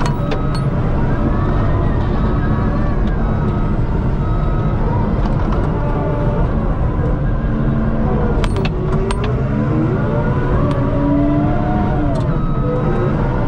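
Caterpillar bulldozer's diesel engine running under load as the blade pushes dirt and stumps, its pitch rising and falling. A few sharp metallic clanks come about two-thirds of the way through.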